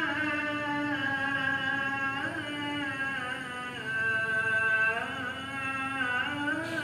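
Azan, the Muslim call to prayer, chanted by a single male voice holding long notes with ornamental turns and slides between pitches.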